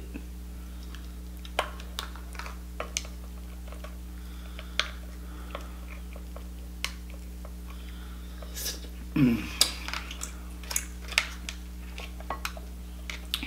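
Scattered sharp clicks and crackles of a cooked lobster's shell being picked and pried apart with a small utensil, mixed with chewing. A short low vocal sound comes about nine seconds in, over a steady low electrical hum.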